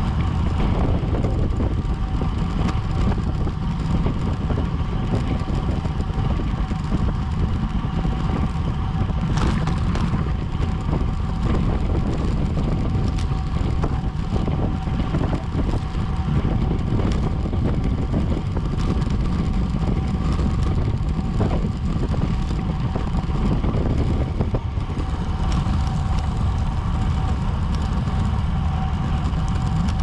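Steady wind rush and road noise on a bicycle-mounted action camera's microphone while the rider is racing, with a thin steady tone running under it.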